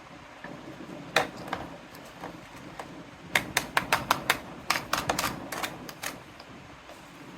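Small hard plastic toy kitchen pieces being handled, clicking and tapping: one sharp click about a second in, then a quick run of about a dozen clicks and taps.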